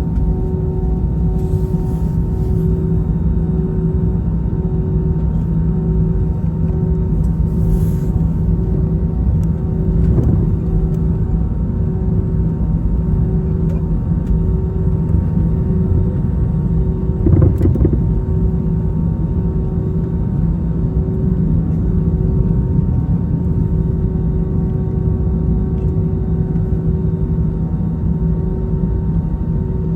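Airbus A321 engines and airframe heard from inside the cabin: a steady low rumble with a constant hum. There are a couple of dull thumps, about ten seconds in and again around seventeen seconds.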